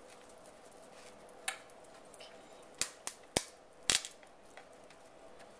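A few light clicks and knocks, about five spread through the middle, as crumbly butter-and-oat crust dough is pressed by hand into a baking pan, over a faint steady hum.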